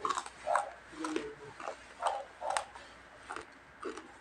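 A person chewing crispy fried skin (chicharon) close to the microphone: crisp crunches about twice a second.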